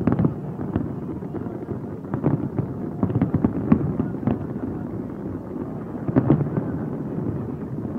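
Fireworks display: a dense, irregular barrage of aerial shell bursts and crackles, with a few louder booms, just after the start, in the middle and a little after six seconds.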